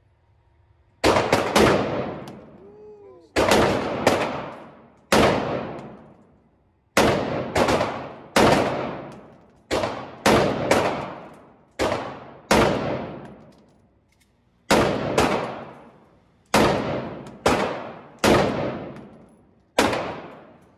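About twenty shots from an AR-15 rifle in 5.56, fired one at a time and in quick pairs, each with a long echoing tail from the indoor range.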